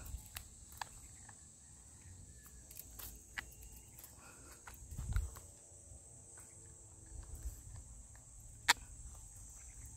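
Scattered small clicks and scrapes of teeth gnawing on a stranded wire cable, with one sharp click near the end, over a steady high insect buzz from the grass. A brief low rumble comes about halfway through.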